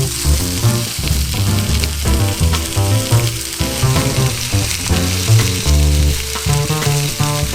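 Food sizzling as it fries in a pan, a steady crackling hiss, under background music with a stepping bass line.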